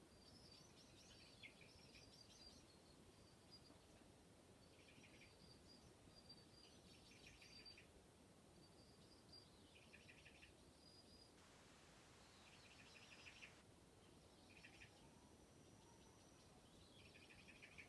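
Faint bird chirps and short trills, repeating every two to three seconds over a low background hiss.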